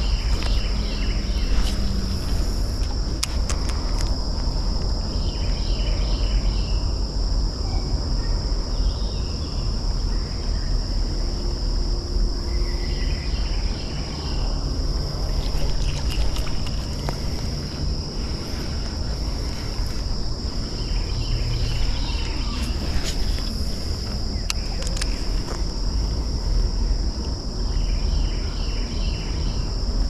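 A steady high-pitched insect chorus, over a constant low rumble, with short chirps now and then and a few sharp clicks.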